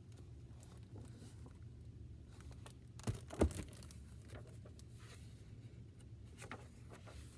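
Pages of a large picture book being turned, with faint paper rustles and a couple of sharper knocks a little past the middle, over a steady low room hum.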